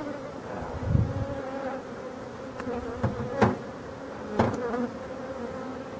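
Honeybees buzzing in a steady hum around an opened hive whose frames are covered in bees. Two sharp clicks come about a second apart midway through.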